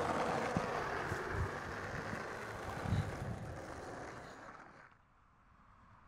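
Skateboard wheels rolling on concrete with a few knocks from the board, fading out to near silence about five seconds in.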